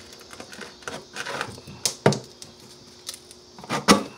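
Old floor tile being pulled up by hand, with scraping and crackling and two sharp snaps or knocks, one about two seconds in and one near the end.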